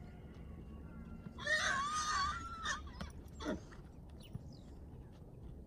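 Horse whinnying: one loud, quavering call about a second and a half long, followed by a short call that drops steeply in pitch.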